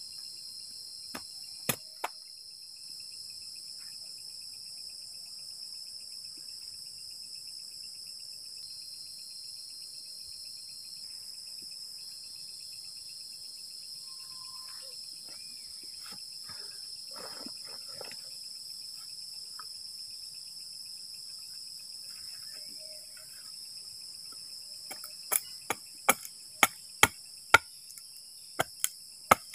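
Crickets and other insects chirring steadily at night. Sharp knocks come twice about two seconds in and then in a quick run of about nine near the end, from splitting and handling kindling wood for a small campfire.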